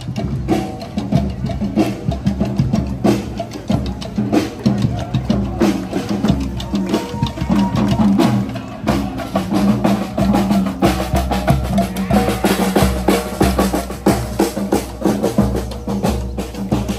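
Marching drummers beating snare drums in a steady parade rhythm, with music playing along.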